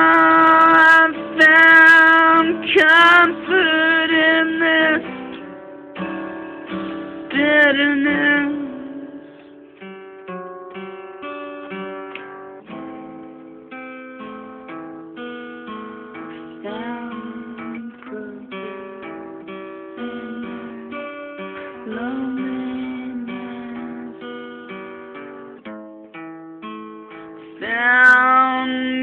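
A man singing long held notes with vibrato over acoustic guitar for the first several seconds; then the guitar plays on alone, picking single notes in a slow pattern, until the voice comes back in near the end.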